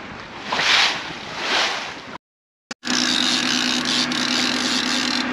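Wind rushing over the microphone and sea noise, swelling twice, then cut off abruptly. After a brief gap, a boat's engine running with a steady drone.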